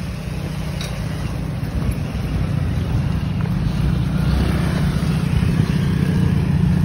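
The lowered Toyota Corolla KE70's engine and exhaust running at low speed: a steady low rumble that grows louder toward the end.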